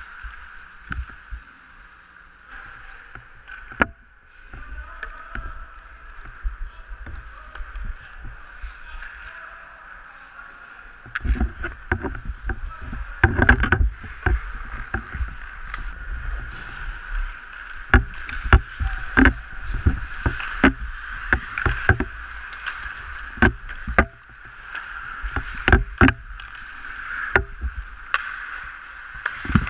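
Pickup ice hockey heard from a camera on the goalie's mask: skates scraping the ice and sharp clacks of sticks and puck over a steady hum, with low thumps as the mask moves. The knocks and thumps get much busier about eleven seconds in, as play comes toward the net.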